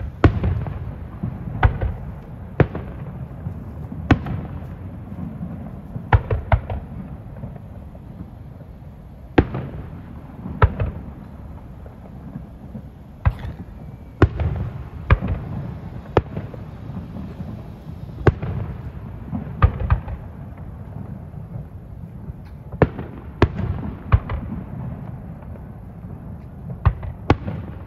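Aerial firework shells bursting in an irregular series of sharp bangs, often one to two seconds apart and sometimes in quick clusters, over a steady low rumble.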